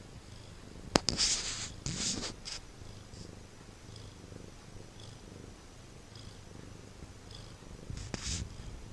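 Domestic cat purring steadily in a low rumble. A sharp click comes about a second in, followed by brief rustling noises, and more rustling comes near the end.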